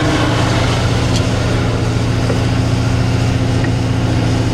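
Truck engine running steadily, a constant low drone heard from inside the cab.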